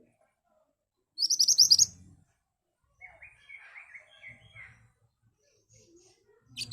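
Pied bushchat (mantenan) singing sharp, rapid bursts of high notes. One burst comes about a second in, soft twittering follows in the middle, and another sharp burst comes near the end.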